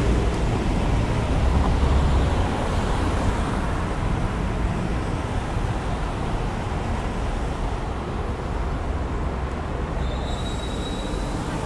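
Steady rush of wind and road noise from riding a bicycle along a city street, with traffic running alongside. A brief high-pitched tone sounds near the end.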